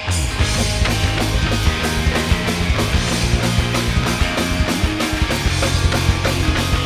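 Live rock band playing an instrumental intro with drum kit and distorted guitars: a full, driving beat that kicks in right at the start.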